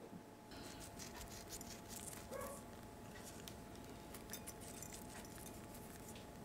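Black sesame seeds sprinkled over a plated chicken thigh, heard as a faint scatter of tiny ticks, with a brief squeak about two and a half seconds in.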